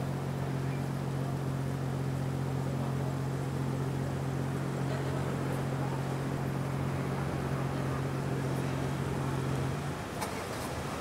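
A steady low mechanical hum over city background noise, cutting out about a second before the end, followed by a faint click.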